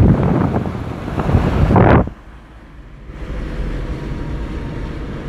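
Loud outdoor rushing roar with wind buffeting the microphone, a noise the speakers liken to the sea in a heavy swell. About two seconds in it cuts off sharply as the car is shut, leaving a quieter low hum inside the car.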